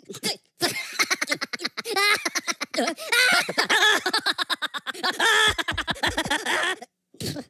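Minion cartoon voices: fast, high giggling and gibberish chatter in quick pulses, breaking off briefly near the end.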